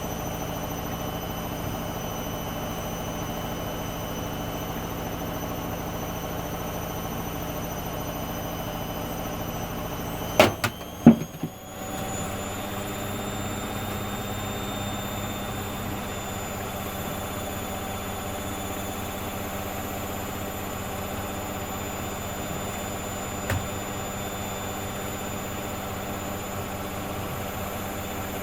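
Hoover Dynamic Next washing machine running early in a cotton 40 wash with a half load: a steady hum with a faint whine. About ten seconds in it is broken by a few sharp clicks and a brief dip, then the hum carries on at a slightly different pitch.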